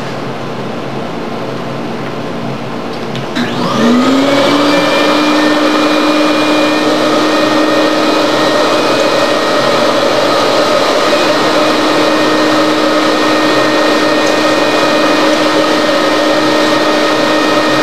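A steady hum, then about three and a half seconds in an electric motor starts up: its whine rises quickly in pitch and settles into a loud, steady drone that runs on.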